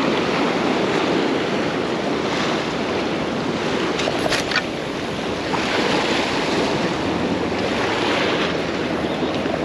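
Choppy surf breaking and washing against jetty rocks in swells every couple of seconds, with wind buffeting the microphone.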